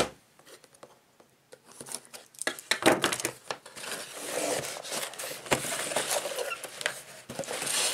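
Cardboard microphone box handled and opened by hand: rustling and scraping of cardboard with several sharp taps and clicks, after a near-silent first second or so.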